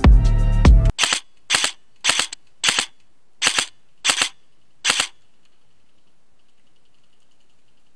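Krytac MK2 CRB electric airsoft rifle firing seven quick pairs of shots, one shot on each trigger pull and one on each release, as its GATE Titan electronic trigger does in binary mode. Background music cuts off just before the first shot.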